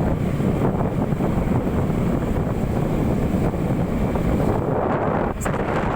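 Wind rushing over the microphone of a moving motorcycle, over the steady running of its engine and tyres on the road, with a short dip about five and a half seconds in.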